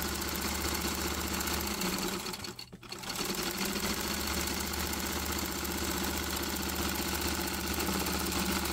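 Vintage Singer sewing machine stitching a seam through cotton flannel. It runs steadily with a rapid, even stitch rhythm, stops briefly about two and a half seconds in, then starts again.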